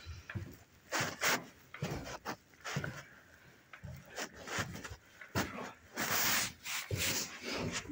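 Footsteps going down bare concrete stairs, an irregular run of steps and shoe scuffs mixed with rubbing from the handheld phone, with a longer, louder scrape about six seconds in.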